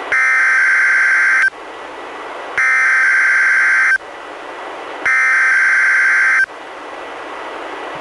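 Three bursts of the Emergency Alert System SAME header (digital data tones), each about 1.4 s long with about a second of radio hiss between them. This header opens a NOAA Weather Radio required weekly test and is decoded by a Reecom R-1630 weather radio.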